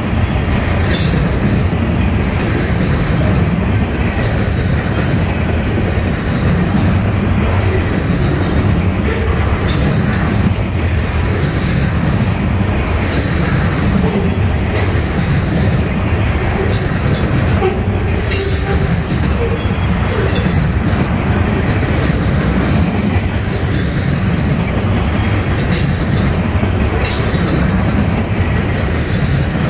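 Freight cars of a loaded trash train rolling past: a steady low rumble of steel wheels on rail, with a few brief sharp high-pitched sounds from the wheels now and then.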